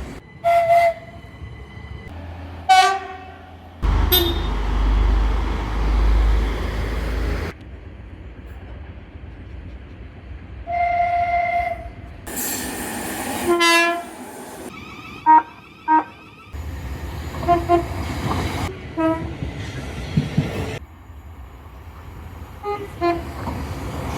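A series of short train horn blasts from several different recordings spliced together, mostly brief toots with one longer held chord about eleven seconds in. Between the blasts there is the rumble and hiss of passing trains, and the background changes abruptly at each cut.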